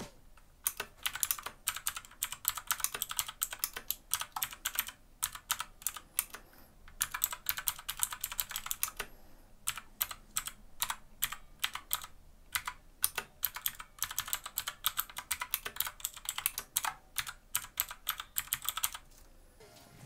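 Typing on a Hiwings HI200 mechanical keyboard with Outemu blue clicky switches: a fast, continuous run of sharp key clicks, broken by a couple of short pauses and stopping shortly before the end.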